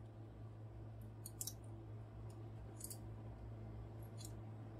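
A few faint clicks and taps of plastic parts as a large transforming robot figure is handled and turned over, over a low steady hum.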